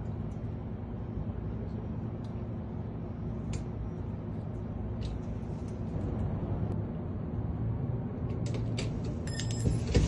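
Light metallic clicks and taps of a door lock being worked with locksmith tools over a steady low hum. Near the end comes a quick run of sharper clicks, then a louder knock.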